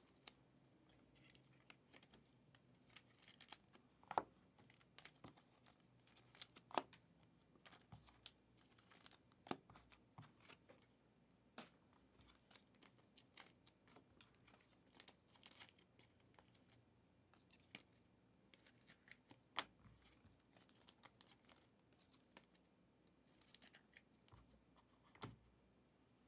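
Faint handling of trading cards and their packaging: scattered soft rustles and light clicks, with a few sharper taps, the loudest a little after 4 seconds and near 7 seconds.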